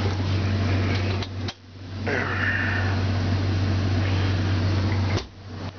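Steady low hum of the ambulance patient compartment's ventilation fan. A short high squeak comes about two seconds in. Two sharp clicks, about a second and a half and about five seconds in, are each followed by a brief dip in the hum.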